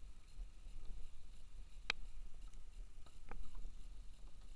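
Water and wind noise around a fishing kayak on open water, a steady low rumble, with a few sharp clicks about two seconds in and a little over three seconds in.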